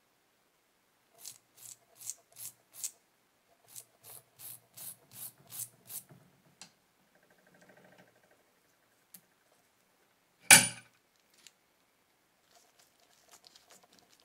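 Hand work on a small rusty metal part at a bench vise: two runs of short rasping scrapes, about two and a half a second. About ten and a half seconds in comes one sharp knock, the loudest sound, and a few faint clicks follow near the end.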